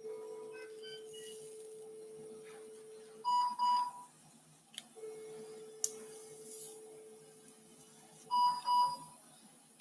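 An electrosurgical (cautery) unit's steady activation tone sounds twice, each time for about three seconds, as current is applied in the wound. After each tone comes a louder, higher double electronic beep, and there are a few faint clicks.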